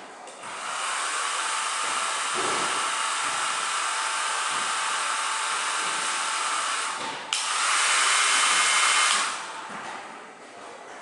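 Handheld hair dryer blowing steadily for about seven seconds. A click follows, and it runs louder and higher for about two seconds before it stops.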